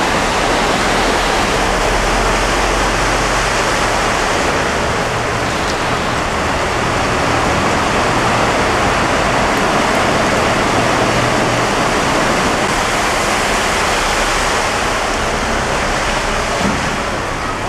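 Steady, loud rush of flash floodwater pouring across a street, with cars driving through the deep water and pushing bow waves.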